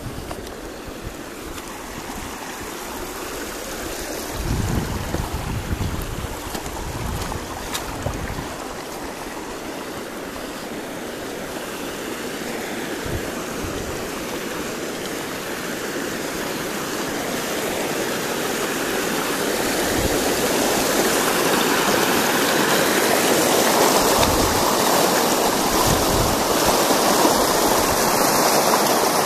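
Rushing mountain stream water, growing steadily louder over the last ten seconds. Wind buffets the microphone with low rumbles now and then, most strongly about five seconds in.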